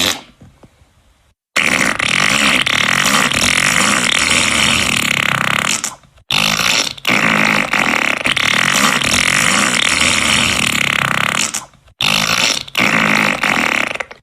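Fart sound effects, loud, long and drawn out, one after another with brief gaps: one of about four seconds, a short one, one of nearly five seconds, and another near the end.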